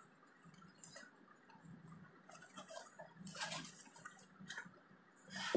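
Faint scraping and tapping of a small cardboard box being handled and opened, in short scattered strokes, the loudest about three and a half seconds in.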